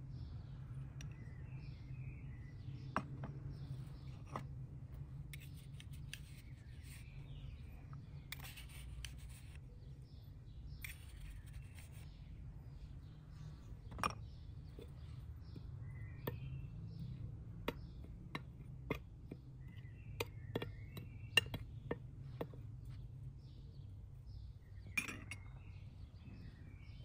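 A metal spoon clinking and scraping against small ceramic bowls and a plate while powdered spice and salt are spooned out, in scattered sharp clinks with a few short scraping passes. Birds chirp faintly a few times.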